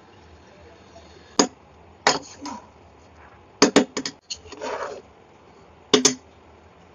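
Spatula knocking against a pan and scraping through cooked biryani rice as it is mixed: a handful of sharp clinks, with a short scraping rustle about halfway through.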